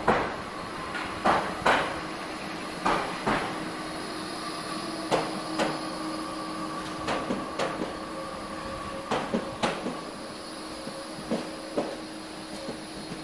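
Tram rolling slowly past, its wheels knocking over rail joints in pairs about half a second apart, every second or two, over a steady hum.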